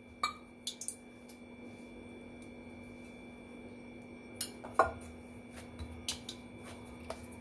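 Hand kneading crumbly flour-and-ghee dough in a glass mixing bowl: scattered light clicks and knocks against the glass, the loudest a little under five seconds in, over a faint steady hum.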